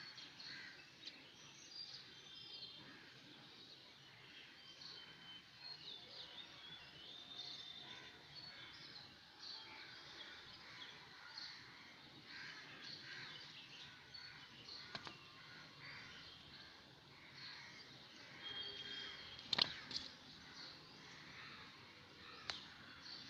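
Faint birds chirping in the background, many short calls scattered throughout, with a soft click twice in the second half.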